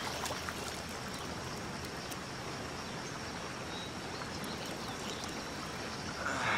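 Shallow rocky river rushing over boulders: a steady rush of water, with a brief louder sound near the end.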